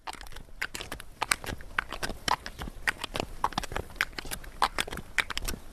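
Footsteps of a walker and the hooves of a cargo mule on a gravel dirt track: an irregular run of sharp, crunching steps, a few every second.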